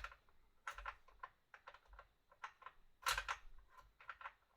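Irregular light clicks and knocks from a cordless framing nailer and pieces of wood being handled and set in place, with a short, louder clatter about three seconds in.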